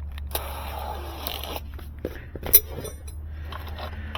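Handling of hand tools and a drill bit: rustling and small metal clinks, with one sharp click about two and a half seconds in, over a steady low hum.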